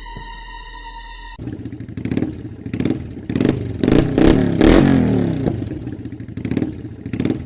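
A steady electronic beep tone that cuts off abruptly after about a second and a half, then a loud engine revving up and down unevenly, with clattering.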